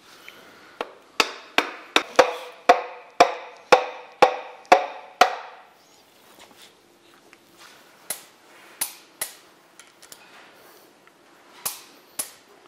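A new piston being tapped down into a Holden 304 V8 cylinder bore through a ring compressor with the wooden handle of a hammer: about eleven sharp knocks, roughly two a second, each with a short metallic ring, stopping about five seconds in. A few lighter, scattered clicks and knocks follow.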